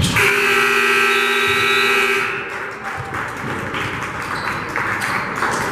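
Gym scoreboard buzzer (horn) sounding a single steady blast of about two seconds, then cutting off, followed by crowd noise in the gym.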